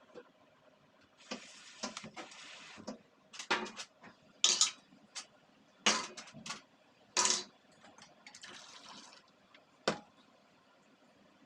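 Washing range-hood fan parts: two short runs of hissing water and several sharp clatters of the parts being handled.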